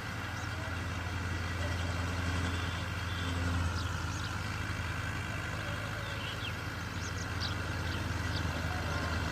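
Engine of a harvesting machine running steadily with a low, even hum that swells slightly a few seconds in.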